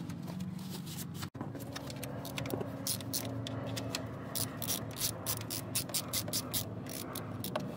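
Hand ratchet with a 14 mm socket clicking in quick irregular runs as the bolts on a mini excavator's track adjuster cover plate are turned loose. The clicking grows busier a couple of seconds in.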